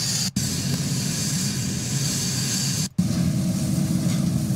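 Steady rushing noise of a wildfire burning through buildings. It cuts out briefly twice where the playback jumps ahead, and after the second jump a faint steady low hum joins in.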